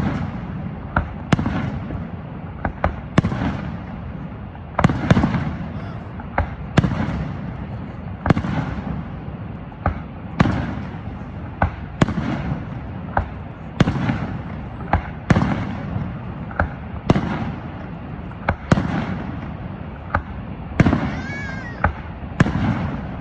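Fireworks display: a steady run of sharp bangs, about one a second, each trailing off in a low rumbling echo.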